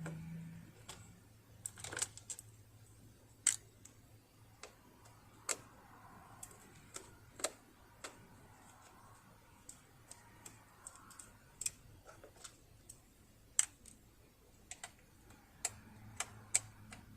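Irregular light clicks and taps from hands and tools working on a Bernina Holidayne 1090 sewing machine while it is being taken apart for oiling.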